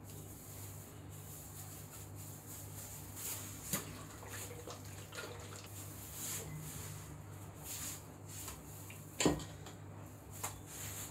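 Quiet handling sounds of cake work on a stone countertop: a few light taps and rustles over a steady low hum, with one sharper knock about nine seconds in.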